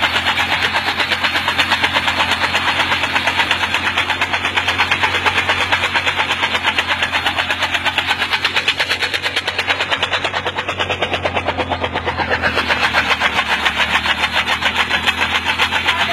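Motorcycle engine running steadily with a fast, even pulsing beat, driving its rear wheel, which is rigged as a chopper cutting green fodder for animals.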